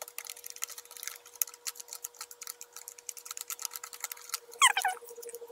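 Small plastic spoon stirring and scraping quickly in a compartment of a Popin' Cookin' kit's plastic tray, mixing the candy powder with water: a fast run of light clicks and taps. A brief high squeak comes about four and a half seconds in.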